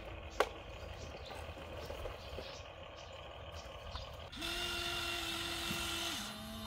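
Small electric motor of a radio-controlled toy construction vehicle whining steadily for about two seconds, its pitch stepping down near the end, after a sharp plastic click about half a second in.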